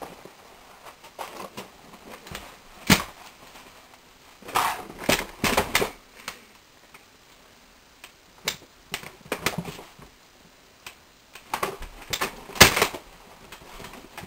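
Irregular knocks, bumps and clatter on a wooden trunk, in scattered clusters, with the sharpest knocks about three seconds in and near the end.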